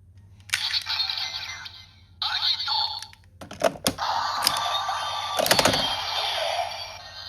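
Bandai DX Heisei Rider Lockseed toy playing its electronic music and sound effects through its small, tinny speaker, with several sharp plastic clicks of the lock mechanism a little past the middle.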